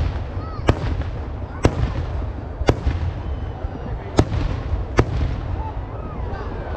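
Temple-festival fireworks going off one at a time: five sharp bangs at uneven intervals of about a second, over a low steady rumble.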